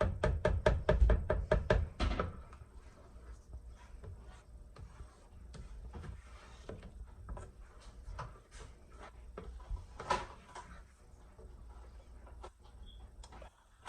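A utensil knocking rapidly against the side of a cooking pot, about six knocks a second for two seconds, then occasional lighter clicks and scrapes while the atole is stirred.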